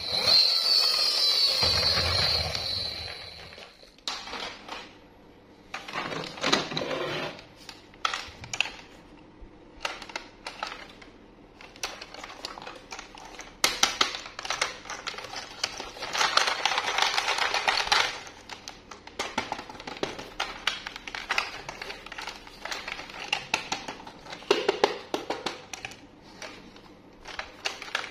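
Plastic toy trains being handled in and out of a cardboard box: irregular clicks, clatters and rustling of plastic and cardboard, with a longer rustle lasting about two seconds a little past halfway. It opens with about three seconds of a high warbling electronic sound over a low hum from the battery toy train.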